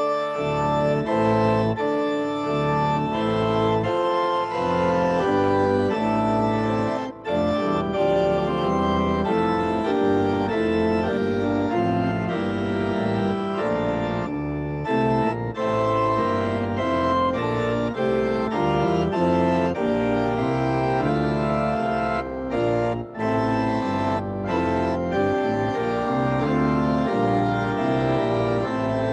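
Home organ with two keyboards playing sustained full chords over a deep pedal bass line, with short breaks between phrases about seven seconds in and again a little past twenty-two seconds.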